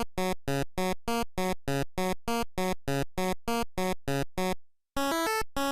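Chiptune-style synthesizer music: a run of short staccato notes, about three a second, then after a brief break a phrase of longer held notes.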